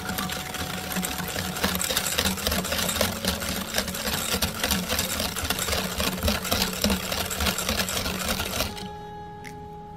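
Wire balloon whisk beating a runny egg mixture in a glass bowl: a fast, steady clatter of wires ticking against the glass with a wet slapping, stopping near the end.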